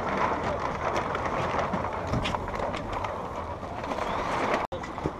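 Loose sails flapping and sailboat rigging clattering in the wind, with wind noise over them and the sound briefly cutting out near the end.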